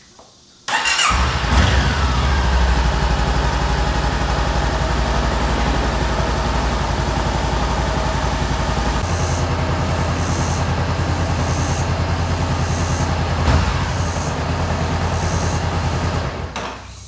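A 2015 Honda CB500X's parallel-twin engine starts up about a second in and settles into a steady idle, run to warm the oil before draining it. The sound drops away near the end.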